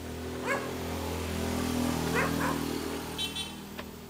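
A motor vehicle's engine passes close by, growing louder to a peak about two seconds in and then fading. A dog barks a few times over it.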